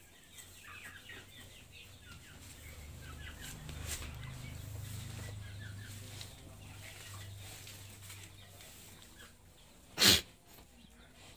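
Chickens clucking and chirping, with a low hum through the middle and one loud, short burst about ten seconds in.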